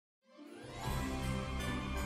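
Background music fading in about a quarter second in, with held chords over a steady bass.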